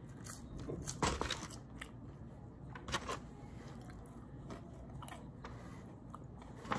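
A person biting and chewing french fries close to the microphone, with a few sharp crunches spread among quieter chewing.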